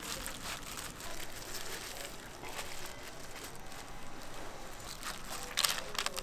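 Crinkling of thin plastic food gloves and light clicking of a bamboo rolling mat as kimbap is rolled and pressed by hand. A few louder crinkly rustles come near the end as rice is spread on a new sheet of laver.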